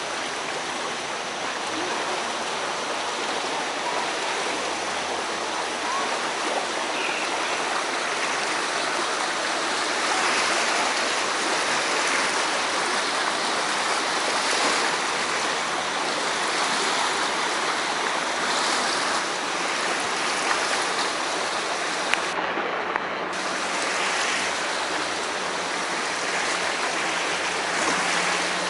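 Flooded Great Egg Harbor River, over its banks, rushing steadily as a continuous roar of moving water.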